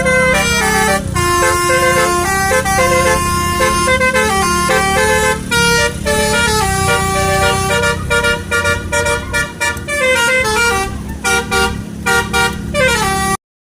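Multi-tone 'telolet' basuri air horn playing a tune, several horn notes sounding together and stepping from pitch to pitch, over a steady low hum. It cuts off abruptly near the end.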